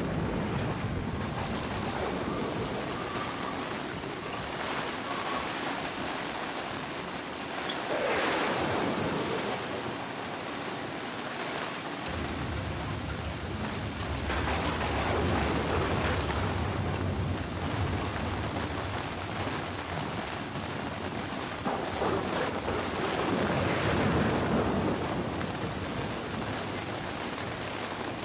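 Storm-at-sea sound of wind and surf: a steady rush that swells into louder wave-like surges about eight, fifteen and twenty-three seconds in, with a deep rumble underneath from about twelve seconds on.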